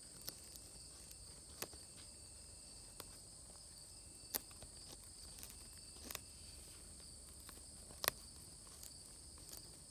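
Sharp, irregular cracks and snaps of a cockatoo's beak chewing and splintering a tree branch, one every second or two, the loudest about eight seconds in. A steady high insect chorus runs underneath.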